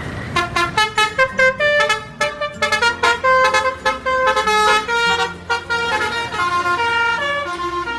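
Toy telolet bus sounding its electronic musical horn: a quick run of horn-like notes stepping up and down in a melody.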